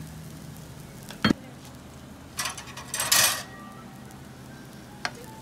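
Metal cooking utensils handled at a fish-bun grill: a sharp knock a little over a second in, a rattling clatter for about a second in the middle, and a small click near the end.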